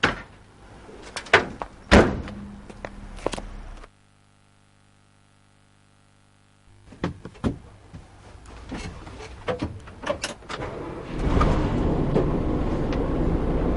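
Several sharp knocks and clunks at the side of a coach. This is followed by a few seconds of near silence, then more knocks. A little after ten seconds in, the steady rumble of the coach's engine running sets in, heard from inside the coach.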